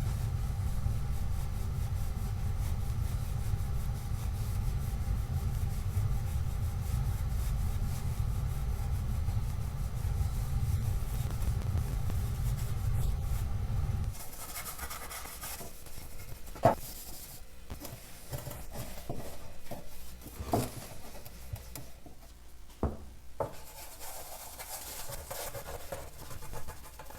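A steady low rumble runs for about the first half and then cuts off. After that comes rubbing as chrome cleaner and rust remover is worked over a chrome motorcycle chain guard, with a few sharp clicks and knocks from handling the part.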